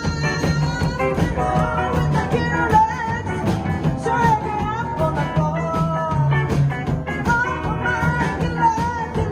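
Rockabilly band playing: drums keep a steady beat under a stepping bass line, guitar and a singing voice.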